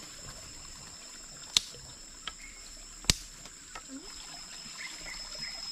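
Two sharp pops about one and a half seconds apart, with a smaller click between them, typical of a wood fire crackling as bamboo tubes cook. A steady high-pitched insect drone runs underneath.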